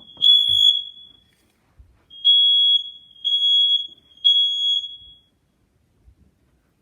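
Smoke alarm sounding under a held test button: loud, high-pitched steady beeps in the three-beep evacuation pattern. One group ends a little under a second in, and after a short pause three more beeps come about a second apart and stop about five seconds in.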